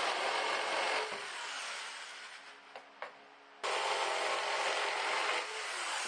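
Electric jigsaw cutting a curve in half-inch plywood: the saw runs and winds down about a second in, two light clicks follow, then it cuts again for about two seconds before winding down once more.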